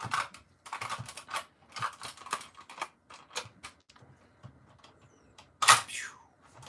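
Hard plastic clicking and knocking as a Buzz Lightyear action figure is handled, then one loud snap about five and a half seconds in as its spring-loaded wings flick open.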